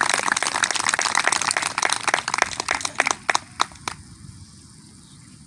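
Audience applauding at the end of a song, the clapping thinning out and dying away about three and a half seconds in.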